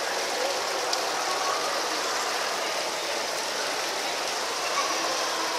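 Indoor rock-waterfall fountain: water splashing steadily down stone ledges into its pool, an even rushing at a constant level.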